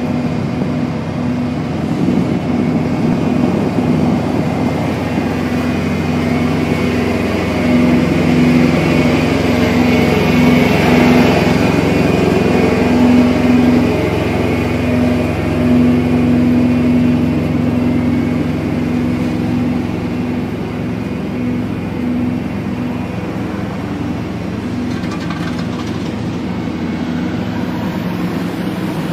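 Diesel semi-truck engines idling, a steady low hum that grows a little louder around the middle.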